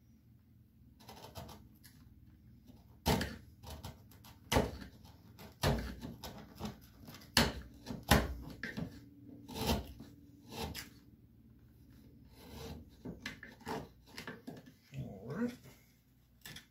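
Carving gouge and chisel paring and chipping wood in a guitar body's routed cavity: irregular sharp cuts and taps, one or two a second. A brief pitched, wavering sound comes near the end.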